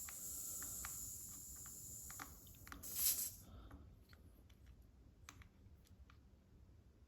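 Faint steady hiss of air escaping from the tube's valve stem while the loose valve core is turned with tweezers; it swells briefly and cuts off about three seconds in. Small light clicks of the tweezer tips against the valve follow.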